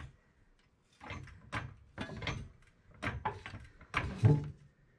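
Steel floor jack being worked under the car: a run of irregular metal clunks and scraping rattles, with the loudest knock about four seconds in.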